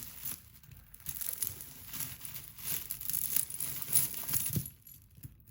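Crinkling and rustling of packing material as jewelry is picked through by hand, with small clicks, dying away a little before five seconds in.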